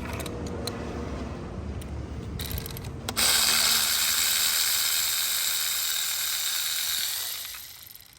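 A few light clicks and handling sounds, then about three seconds in a loud, steady hiss of compressed air from an air tool that runs for about four seconds and fades away near the end, while the third spark plug is being removed.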